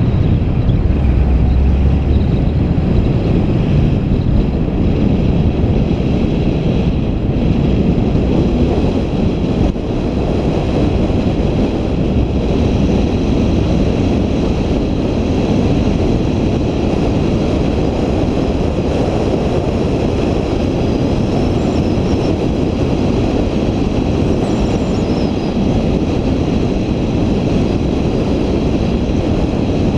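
A vehicle on the move: steady, loud road and engine noise that holds an even level throughout.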